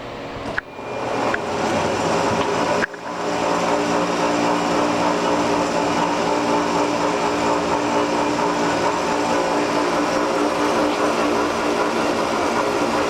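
Baleigh 9-inch semi-automatic horizontal band saw running under power, a steady machine noise with a few held tones. It starts just under a second in and breaks off briefly about three seconds in.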